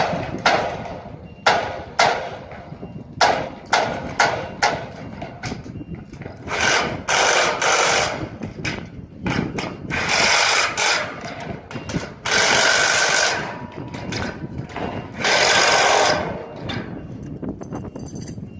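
Hammer blows driving metal wedges into the rack's joints: a run of sharp metallic strikes, several a second at times. Later come four longer, harsher bursts of about a second each.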